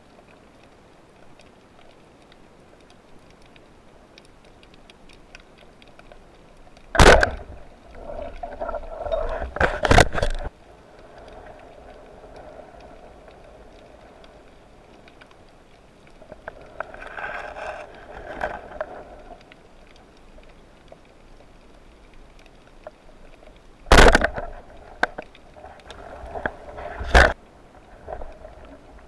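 Muffled underwater sound picked up by a camera in a waterproof housing mounted on a speargun. A low steady hiss is broken by several sharp knocks on the housing or gun, in two pairs a few seconds apart. Between them come short stretches of rushing, gurgling water noise.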